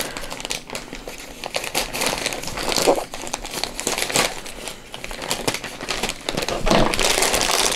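Plastic poly mailer crinkling and crackling as it is cut open along its edge with scissors and pulled apart by hand. There is a dense run of small crackles, and the crinkling gets louder near the end.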